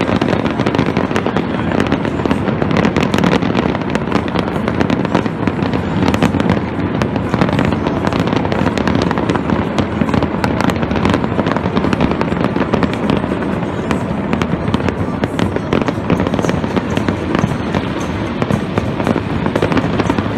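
Fireworks display: a dense, unbroken run of bangs and crackling bursts, many overlapping.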